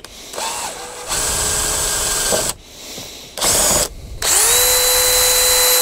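Cordless drill with a twist bit boring holes through pieces of rubber floor mat. It runs in separate bursts: a short one, a run of about a second and a half, a brief blip, then a longer run near the end whose motor whine rises and settles to a steady pitch.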